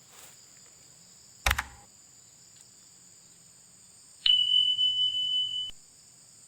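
A sharp knock about a second and a half in, then a single steady high-pitched beep lasting about a second and a half that starts and stops abruptly and is the loudest sound here. A constant high insect drone runs underneath.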